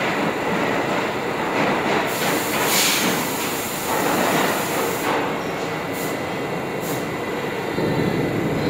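Subway train noise in an underground station: a steady, loud rail rumble with several short bursts of hiss.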